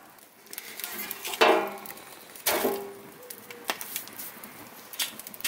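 Wood fire crackling in a metal fire pit, with scattered sharp pops and two louder knocks that ring briefly, about one and a half and two and a half seconds in.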